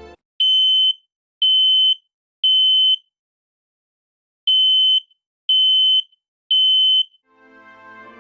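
Smoke alarm sounding while its test button is held down: two sets of three loud, high-pitched beeps, each about half a second long, with a pause between the sets. This is the standard temporal-three alarm pattern, showing the alarm is working.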